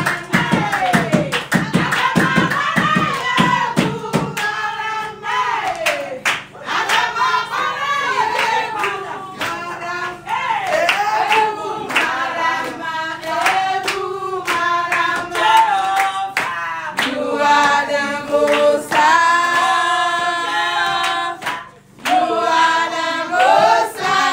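A group of people singing together with rhythmic handclapping. The claps are thick and fast for the first four seconds or so, then thin out beneath the singing.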